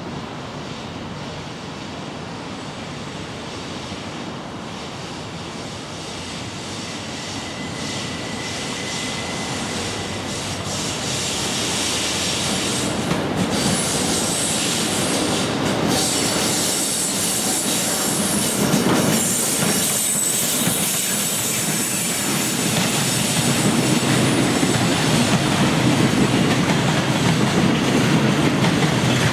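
JR Freight EF66 electric locomotive hauling a container freight train as it approaches and passes, the wheels clacking over rail joints and squealing at times on the curving track. The train noise grows steadily louder as it nears.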